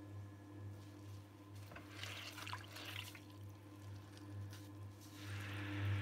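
Electric potter's wheel humming steadily with a slow pulse, under the wet swishing and squishing of a sponge and wet hands on the spinning clay bowl. A burst of wet squishing comes about two seconds in, and a steadier wet rubbing starts about five seconds in.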